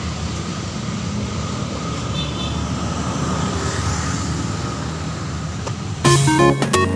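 Steady low rumble of street traffic, with a brief high chirping tone a couple of seconds in. About six seconds in, electronic background music starts suddenly with a stepped melody and is louder than the traffic.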